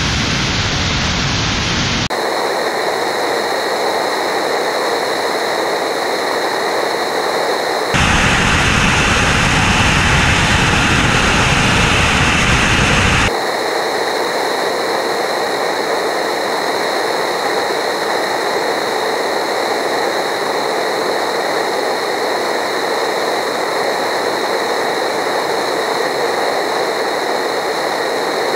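Rocket engine of a Dawn Mk-II Aurora spaceplane hot-firing on a tied-down static test, a continuous loud rushing noise. The tone and loudness jump abruptly a few times as the recording cuts between camera positions, loudest for about five seconds in the middle.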